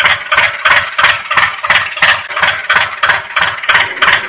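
Tractor engine chugging in a steady, even beat of about three pulses a second, put on as the engine sound for a miniature toy tractor pulling a loaded trolley.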